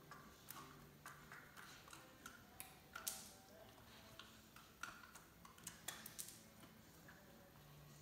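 Quiet, irregular clicks and knocks as a German Shepherd puppy noses and paws an ice cube across a hardwood floor, the ice tapping on the wood along with the puppy's claws; the sharpest knock comes about three seconds in.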